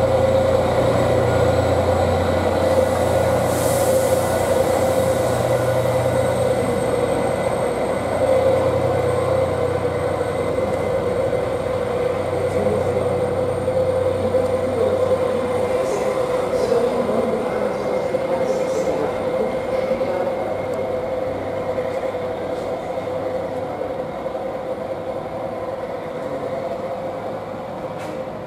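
A train running at the station: a steady whine with a low rumble that dies away about halfway through, the whole sound slowly growing quieter.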